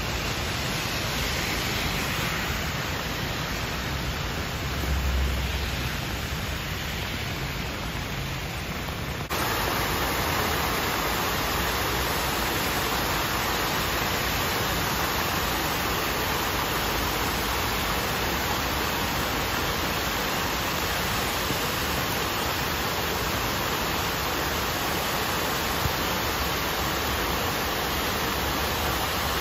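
Floodwater rushing through a swollen stream channel, a steady rushing noise with a brief low rumble about five seconds in. About nine seconds in it cuts to louder, brighter rushing as floodwater pours down a stone wall into the stream like a waterfall.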